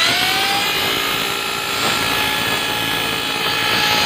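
Hand-wound tuned motor ('dinamo setan') in a Tamiya mini 4WD car, test-run on a small 800 mAh battery with the car held in the hand and its wheels spinning free. It gives a high, steady whine with gear noise, rising in pitch as it spins up in the first half second.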